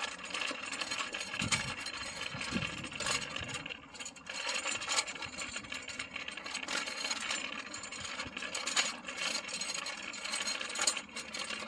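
Steady rattling and clicking clatter.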